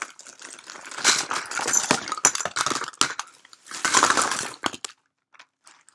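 Large white plastic bag crinkling and rustling as it is lifted and handled, with sharp clicks and clinks mixed in. It stops about five seconds in.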